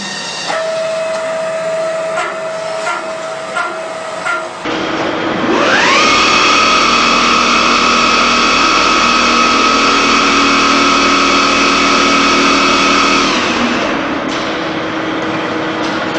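CNC polygon lathe running. First a steady hum with irregular metallic ticks, then the spindle spins up with a rising whine, holds at a steady high whine for about seven seconds and winds down.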